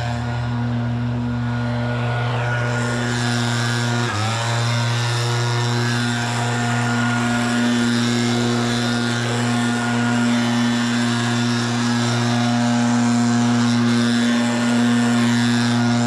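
An engine running steadily at constant speed. Its pitch dips briefly about four seconds in, then comes back up.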